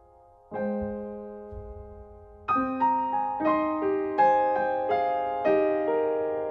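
Background piano music: a chord struck about half a second in and left to ring, then a gentle run of single notes, two or three a second.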